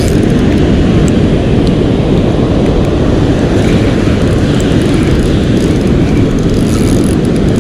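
Ocean surf breaking on a sandy beach, heard as a loud, steady, low rumbling noise.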